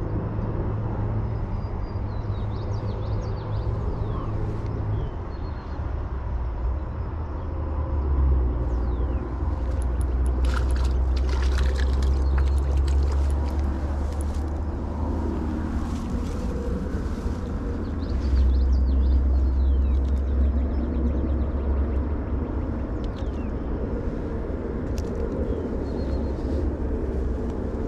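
Wind buffeting an open-air microphone, a low rumble that swells in two gusts, with a flurry of sharp clicks and rattles about ten to fourteen seconds in and a few more clicks later.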